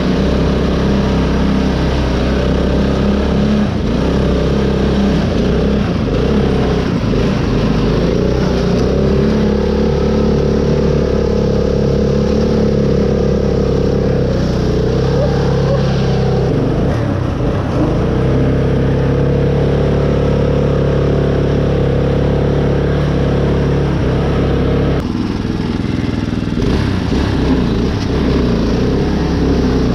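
Craftsman riding lawn mower's engine running as the custom mud mower drives across rough ground, with the engine note shifting a few times.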